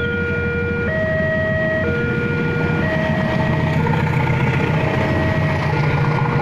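Railway level-crossing warning alarm sounding in two alternating tones that switch about once a second, as a diesel locomotive hauling passenger coaches enters the crossing. The locomotive's engine rumble and wheel noise build from about three seconds in.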